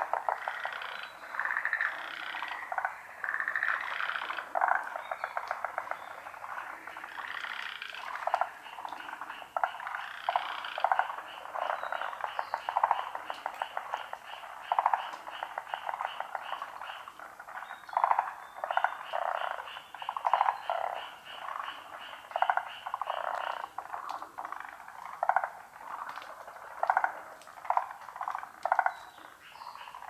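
A chorus of many frogs calling at once: overlapping repeated croaks and fast pulsed trills, with a high rapid rattle running through the middle of the stretch.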